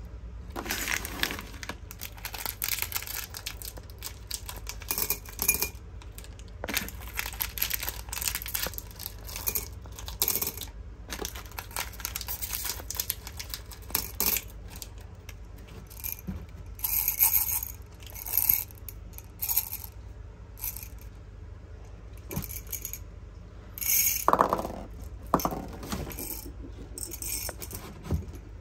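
Hard candies clicking and clattering against each other and a hard surface in irregular bursts of sharp clicks, with a louder clatter near the end.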